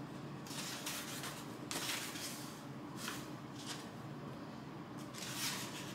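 Pages of a hardcover book being turned by hand: several brief, soft paper rustles and flips.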